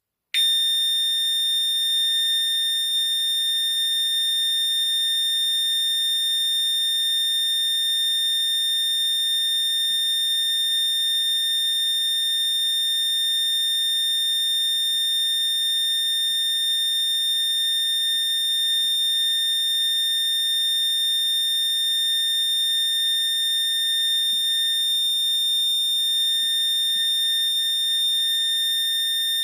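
ASD AVS 2000 fire-alarm sounder (2015 unit) set to continuous tone, sounding one steady high-pitched tone that switches on just after the start and holds without any change.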